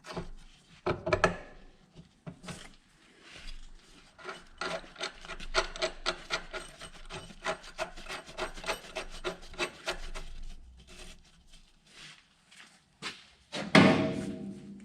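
1-7/16 wrench turning a large nut down on a battery disconnect switch stud: a quick run of metallic clicks and scrapes, with a louder ringing knock near the end.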